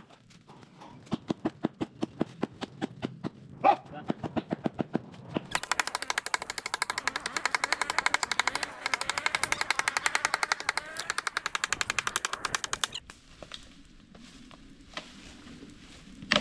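A rapid, even run of sharp knocks like machine-gun fire. It grows denser and louder over a hiss partway through, then stops abruptly well before the end.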